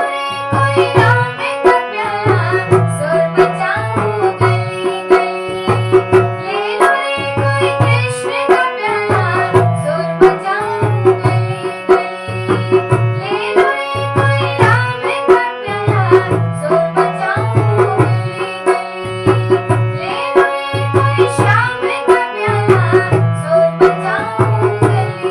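Hindu devotional bhajan music: a steady, repeating drum beat under a melody with sustained tones.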